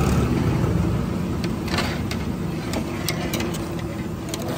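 Puris deep-frying in a large kadhai of hot oil, under a steady low rumble, with a few sharp clinks of a metal slotted spoon against the iron pan.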